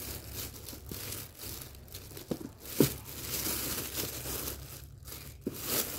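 Thin clear plastic bag crinkling and rustling as hands pull it open around a cardboard box, in irregular crackles with a sharper crinkle about three seconds in.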